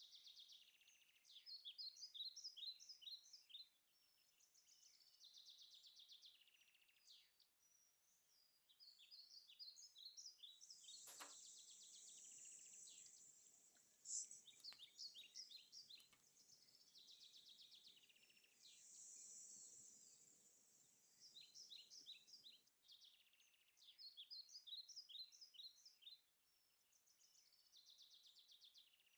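Small birds chirping and singing faintly in quick repeated phrases, with a faint low hum in the middle.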